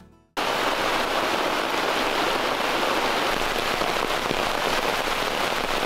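Heavy downpour: dense, steady rain that cuts in suddenly a fraction of a second in.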